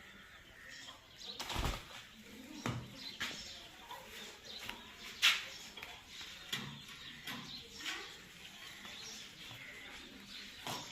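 Green parrots scuffling, with flapping wings, brief chirps and sharp clicks, and a heavy thump about a second and a half in.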